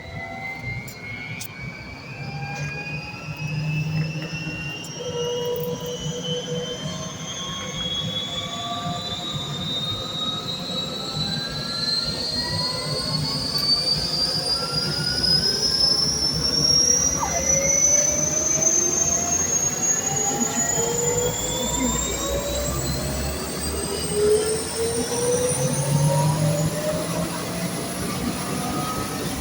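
Bell UH-1 Huey helicopter's turbine engine spooling up on start: a whine rising steadily in pitch and growing louder, levelling off near the end.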